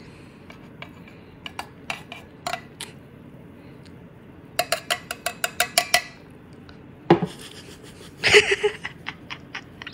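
Coffee cup and utensils clinking: scattered light clinks, then a quick, even run of about ten ringing taps around the middle, and a single knock about seven seconds in.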